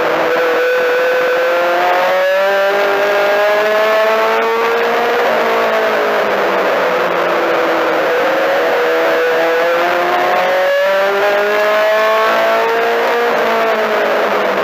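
Four-cylinder Mini-Stock race car engine heard from inside the car at racing speed. Its note climbs for several seconds on the straights, then drops as the driver lifts into the turns, about twice.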